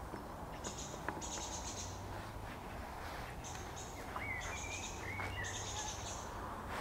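Birds calling at dusk: a run of short, high, chirping trills, with a couple of whistled phrases about four and five seconds in.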